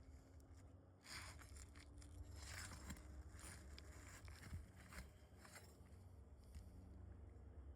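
Faint, irregular scraping and rustling from asphalt shingles being handled and worked during a roof shingle repair, over a low steady rumble.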